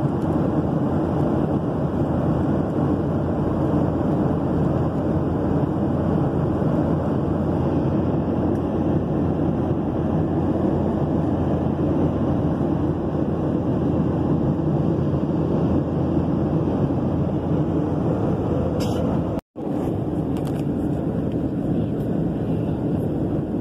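Steady rushing cabin noise of a Boeing 737 airliner in cruise flight. The sound drops out for an instant about nineteen seconds in, then resumes with a few faint clicks.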